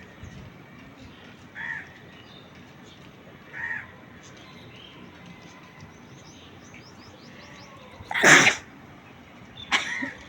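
A woman sneezes loudly once about eight seconds in, with a second, shorter burst just before the end. Earlier, a few short crow caws sound in the background.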